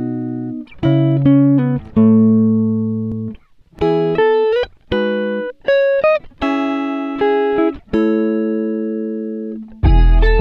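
Background music: a plucked-string melody of single notes and chords, each dying away after it is struck. Near the end a deep bass and a fuller sound come in.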